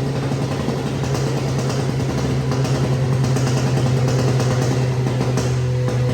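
Remapped Volkswagen Up MPI's 1.0 three-cylinder engine running on a chassis dynamometer during a power test, a steady drone at one pitch that grows slightly louder.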